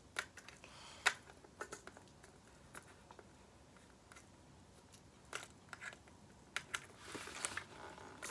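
Hands handling a Xenith X2E+ football helmet: scattered light clicks and taps from working on its parts, the sharpest about a second in, then a brief rustling scrape near the end.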